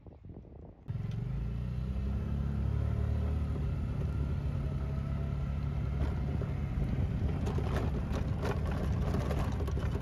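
Golf cart driving fast, a loud steady low running drone that cuts in about a second in, with knocks and rattles from about seven seconds on.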